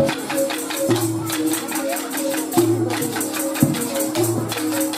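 An ensemble of bamboo angklung playing a melody, each tube shaken into a fast rattling tremolo on its note. Tambourine jingles go along with it, and short low notes come about every second and a half.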